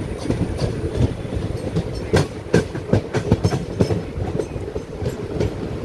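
Indian Railways passenger coach running along the track: a steady low rumble of the wheels with irregular clacks as they pass over rail joints, the sharpest ones a couple of seconds in and a run of them just after the middle.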